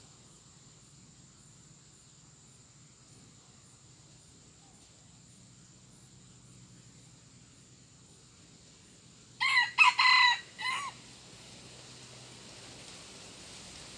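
A rooster crows once about nine seconds in: a short crow of about four choppy notes lasting about a second and a half. Before and after it there is only a faint steady background.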